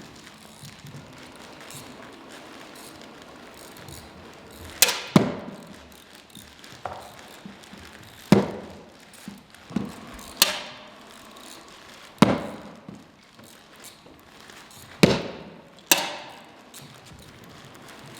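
A series of about eight sharp knocks or bangs, irregularly spaced and some in quick pairs, starting about five seconds in; each fades with a short ringing tail.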